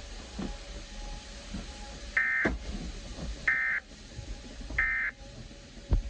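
Emergency Alert System end-of-message data bursts: three short digital tone bursts about a second apart, marking the end of the alert. A sharp click comes near the end.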